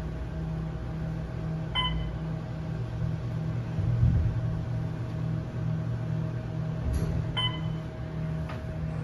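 Otis Series 1 hydraulic elevator car travelling upward with a steady low hum and some rumble. Two short electronic beeps from the car's floor signal sound about five and a half seconds apart.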